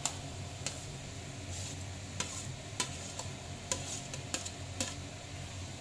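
Boiled sweet corn kernels being stirred into sizzling onion-capsicum masala in a wok with a steel slotted spatula: a steady sizzle with irregular sharp clinks of the spatula against the pan.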